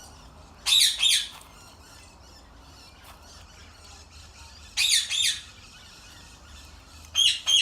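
Caged pet bird squawking loudly: two sharp calls about a second in, two more about five seconds in, then a quick run of short repeated calls near the end. Its owner takes the calling as the bird wanting to come out of its cage.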